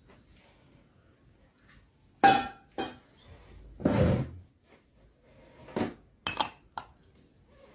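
Kitchenware being handled: a series of separate clinks and knocks of dishes, glass or utensils, with a longer, heavier clatter about four seconds in.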